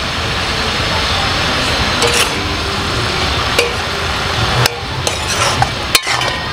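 Bottle-gourd greens with pumpkin and beans sizzling in a metal kadai, stirred with a large steel spoon that clicks and scrapes against the pan several times over a steady frying hiss.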